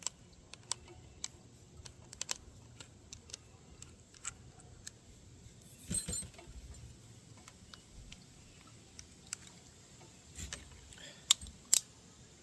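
Hand tools and small metal parts clicking and clinking while parts are taken off a mini bike, with a louder clatter about six seconds in and two sharp clicks near the end.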